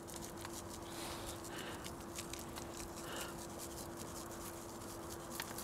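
Dry BBQ rub shaken from a shaker jar onto raw ribs in a stainless steel tray: faint scattered pattering of granules, with a faint steady hum underneath.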